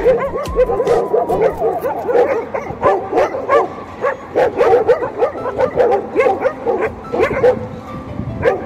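A group of stray dogs yipping and whining in short, rising-and-falling calls, over and over, with scattered clicks, excited at feeding time.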